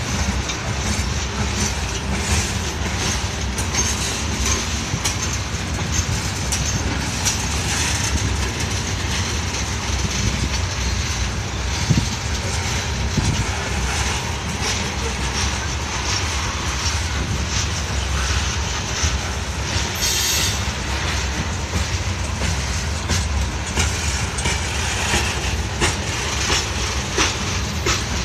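Freight train of open-top hopper cars rolling past close by: a steady rumble of steel wheels on the rails with a running clickety-clack of wheels over rail joints. A brief high hiss cuts in about two-thirds of the way through.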